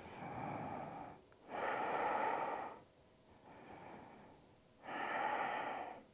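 A woman breathing slowly and audibly: four long breaths of about a second each, softer and louder in turn, making two slow in-and-out cycles.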